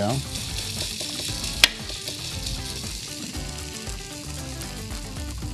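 Zucchini waffle batter sizzling on the hot plates of a four-well mini waffle iron, a steady hiss, with one sharp click about a second and a half in.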